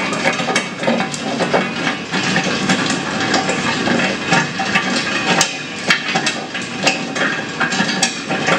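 Locomotive 1000 nut cracker de-husking tropical almonds: a dense, irregular clatter of hard nuts knocking and cracking as the cone works them down in the cracking chamber.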